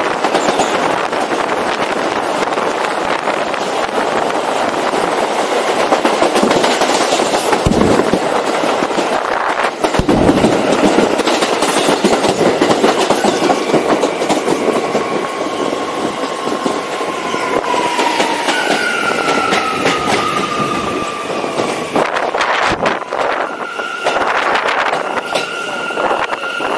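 New York City subway train running at speed on the rails, a dense steady rumble with a couple of knocks. As it brakes into the station, a high squeal sets in about halfway through, first a slowly falling tone, then a steady higher whine that holds to the stop.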